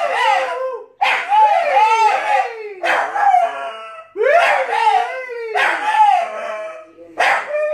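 Staffordshire bull terrier howling in a run of about six wavering, rising-and-falling yowls, broken by short pauses.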